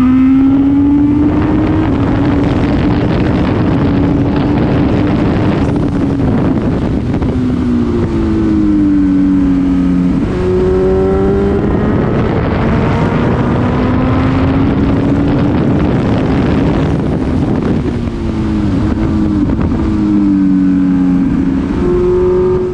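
Honda CB1000R's inline-four engine running under way, heard onboard through a GoPro microphone with wind noise, its pitch rising and falling with the throttle. About ten seconds in the pitch falls off and then jumps up sharply at a gear change.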